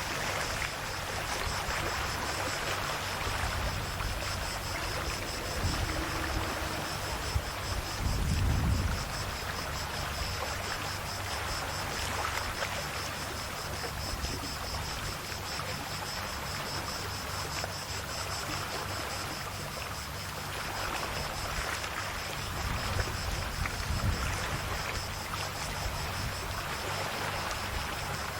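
Calm sea waves washing gently on the shore, a continuous wash with a heavier, deeper surge about a third of the way in and another near the end. A steady high-pitched tone sits faintly in the background.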